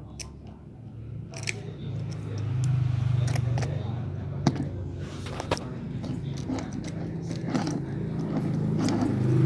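Mini engine running with a steady low hum that gets louder about two seconds in, with scattered sharp clicks and knocks.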